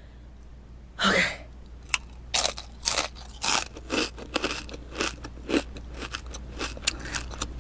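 A tortilla chip (a Doritos) bitten about a second in, then chewed with sharp, irregular crunches, two or three a second, picked up close to the microphone.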